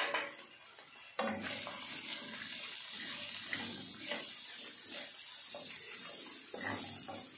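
Water running steadily from a kitchen tap into the sink, turned on suddenly about a second in, with a few faint knocks of things under the stream.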